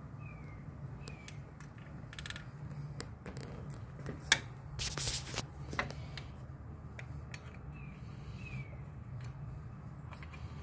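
Small sharp plastic clicks and rustling as fingers handle the wiring connector on a Holley Sniper throttle position sensor, the loudest click about four seconds in, with a brief rustle just after. A steady low hum runs underneath.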